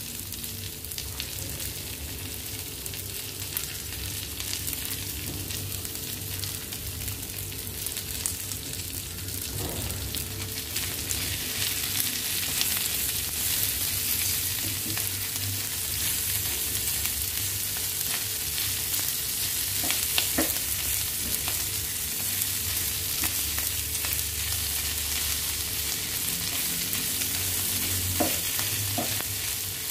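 Pork sisig sizzling in a hot pan while a wooden spatula stirs it. The sizzle grows louder partway through, once the stirring starts, and the spatula knocks against the pan a few times.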